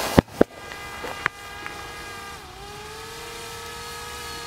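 Two sharp pops just after the hiss of a model rocket motor on a 1/10 RC touring car cuts off, then a steady high whine that dips in pitch briefly midway and recovers.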